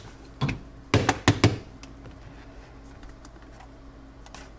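Several sharp plastic clicks and knocks from a small electric coffee grinder being handled, its clear lid taken off after grinding, packed into the first second and a half.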